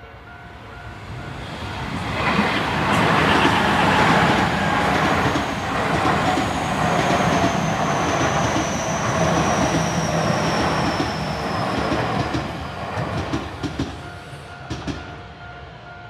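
Tobu Tojo Line electric train passing over a level crossing: wheels clattering over the rails, with a thin high whine that slowly falls in pitch. As the train clears, near the end, the crossing's warning bells ring out again in a steady pulsing pattern.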